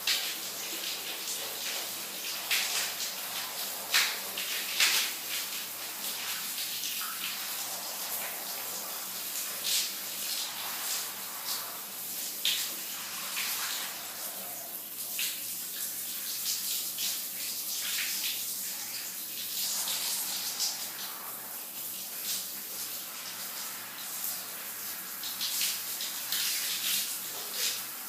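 Shower running: a steady hiss of spraying water broken by frequent, irregular splashes and spatters.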